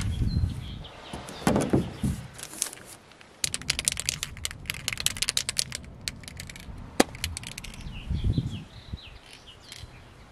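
Newspaper crackling as it is pressed and taped over a caravan vent, then an aerosol spray-paint can being shaken, its mixing ball rattling in fast clicks for about three seconds, followed by a single sharp click.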